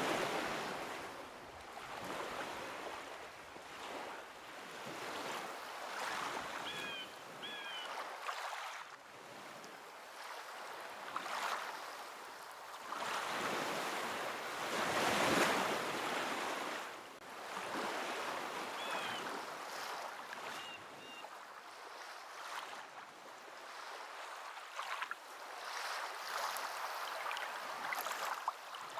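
Ocean waves washing in and drawing back, swelling and fading every few seconds. Short high calls come twice, in pairs, over the surf.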